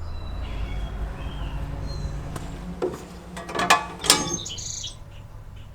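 Birds chirping over a steady low hum, with a few sharp clicks or knocks about two thirds of the way in.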